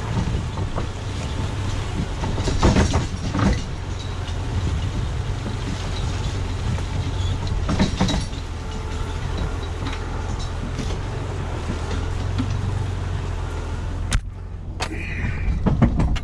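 Jeep Cherokee engine pulling steadily at low speed over a rough woods trail while towing a log arch loaded with a heavy oak log, with clunks and rattles from the rig, loudest about 3 and 8 seconds in. The sound shifts abruptly near the end.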